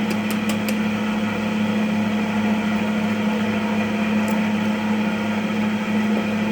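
Cotton candy machine running, its motor spinning the head with a steady hum while the head heats up before sugar goes in. A few light ticks sound in the first second.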